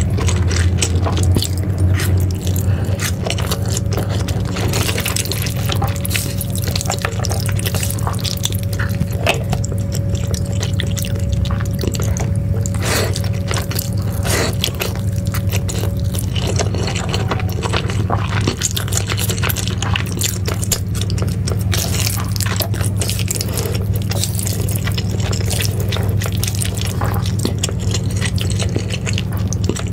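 Slurping and chewing of saucy instant noodles with melted cheese: a quick run of wet smacks, sucks and clicks, over steady low background music.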